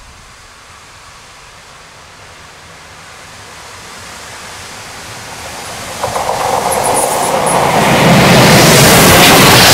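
A steam-hauled train approaching along the line, growing steadily louder with the rattle of its wheels on the rails. It gets sharply louder about six seconds in and is at its loudest over the last couple of seconds as it draws level.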